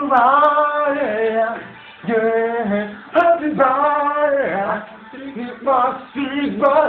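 A man singing unaccompanied, with no instruments: phrases of drawn-out notes with short breaks between them.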